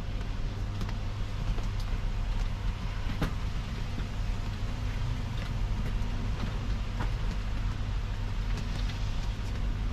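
Steady low rumble inside a Tesla's cabin, with a few scattered ticks.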